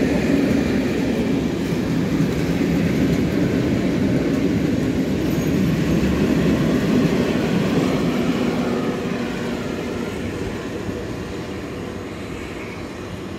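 Freight train of bulk-powder silo wagons passing, a steady noise of wheels running on the rails that fades away from about eight seconds in as the last wagons pull off.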